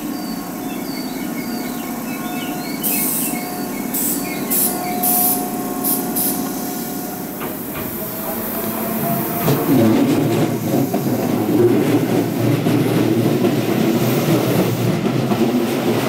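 Tobu electric commuter trains at a station. For the first half there is a steady hum with several short hisses, then from about ten seconds in a train is heard running over the rails with a louder rumble and wheel noise.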